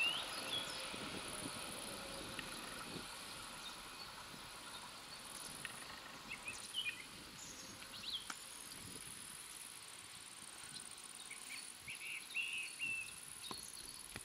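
Quiet summer countryside: a steady high insect buzz with a few short bird chirps.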